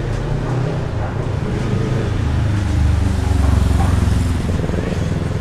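Motor vehicle passing on the street: a low engine rumble that builds to its loudest about three and a half seconds in, then fades.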